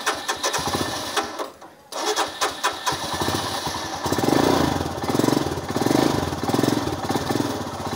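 Royal Enfield Himalayan's single-cylinder engine running while being warmed up, given short blips of throttle from about four seconds in.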